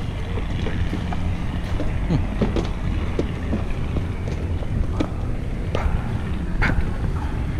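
Steady low rumble of a boat engine mixed with wind buffeting the microphone, with several sharp knocks in the second half.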